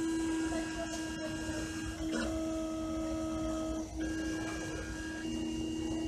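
Computer-controlled engraving machine engraving a pocketknife's scale: a steady motor hum with whining tones that shift to new pitches every second or two as the machine moves through the lettering.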